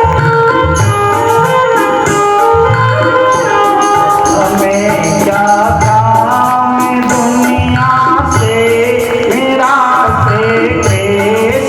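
Indian devotional bhajan music: melody instruments playing over a steady drum beat.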